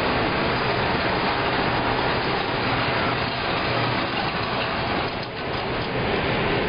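Steady mechanical running noise of an indoor range's motorized target carrier bringing a paper target back along its overhead track, mixed with the range's ventilation noise.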